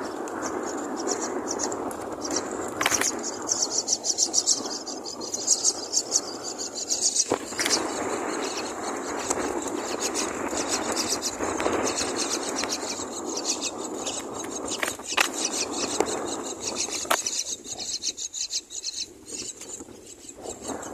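Myna nestlings begging for food: a rapid, high, raspy chittering of many short calls, over a steady rustling noise with a few sharp clicks.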